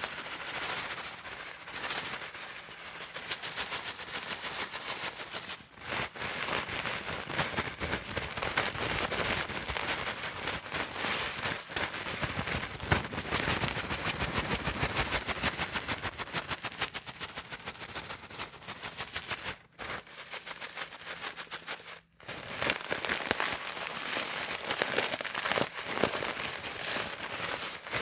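Comb teeth being dragged across calendar paper, making a fast stream of tiny clicks, with a few short breaks.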